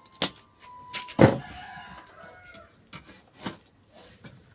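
A spring-loaded desoldering pump snaps as it fires, and a heavier knock follows about a second later. A rooster crows in the background.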